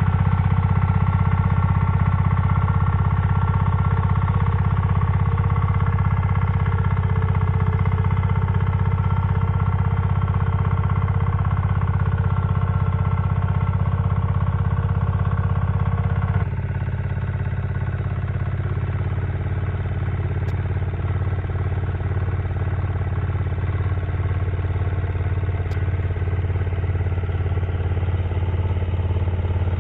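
Two-wheel walking tractor (power tiller) engine running steadily while plowing a field. The sound shifts abruptly about halfway through to a slightly quieter, lower steady run.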